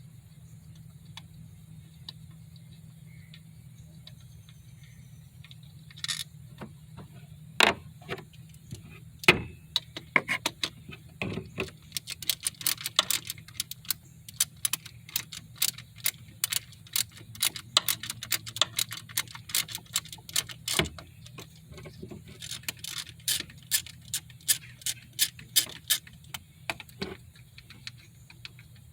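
Hand tools working on bolts: many sharp metallic clicks and clinks in quick runs, over a steady low hum.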